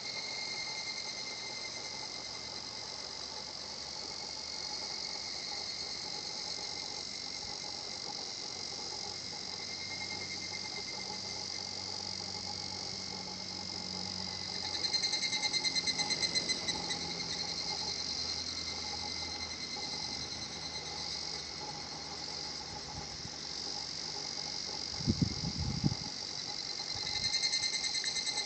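Higurashi cicadas (evening cicadas) calling their rapid, pulsed 'kana-kana-kana' song, one chorus swelling louder about halfway through and another near the end. A couple of brief low thumps a few seconds before the end.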